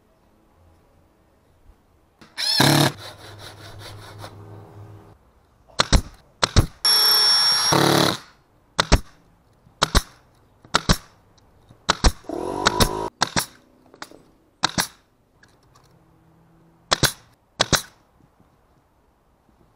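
Cordless drill driving screws into a wooden frame in a couple of short whining runs, followed by a string of single sharp shots from a nail gun fastening wood pieces.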